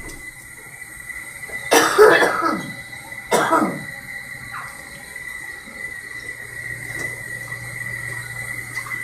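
A person coughing twice, the first about two seconds in and the second about a second and a half later. A steady high tone sounds throughout.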